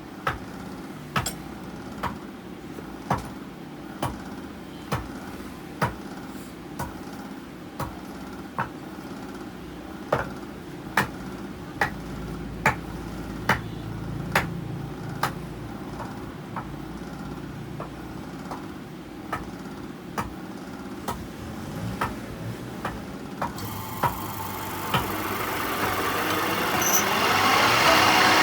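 Sharp knocks about once a second over a steady machine hum, then a loud rushing machine noise that builds over the last few seconds.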